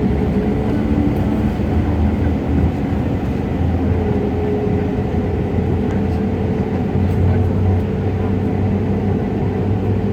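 Cabin noise inside an Airbus A319 lined up on the runway: the jet engines and airframe give a steady low rumble with a faint steady hum over it.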